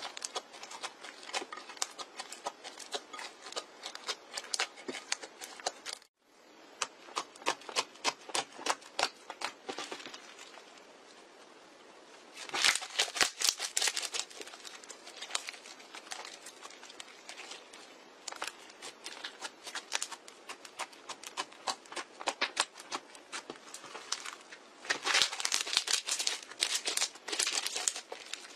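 Glitter slime being squeezed, folded and stretched by hand, making a rapid run of small sticky clicks and crackles. There is a short break about six seconds in, and the clicking grows louder around halfway and again near the end.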